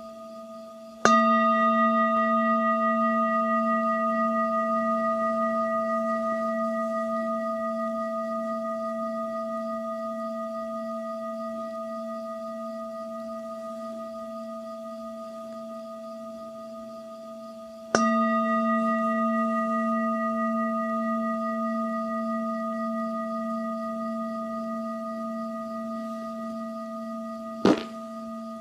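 Singing bowl struck twice, about 17 seconds apart, each strike ringing on in a long, slow fade with a wavering low hum beneath higher ringing tones. A short, sharp knock near the end.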